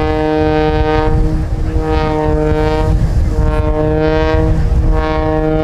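Aerobatic plane's propeller and engine note coming and going in about four surges as the plane tumbles and rolls overhead, with wind buffeting the microphone underneath.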